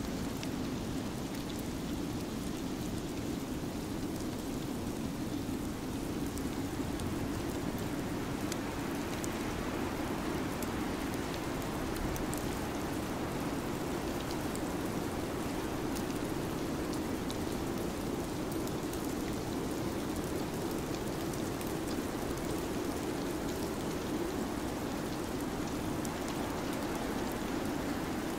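Steady winter-storm ambience: an even rushing hiss with scattered faint ticks.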